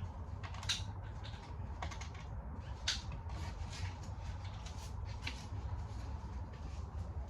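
Irregular light clicks and taps, with two sharper ones in the first three seconds, over a steady low rumble.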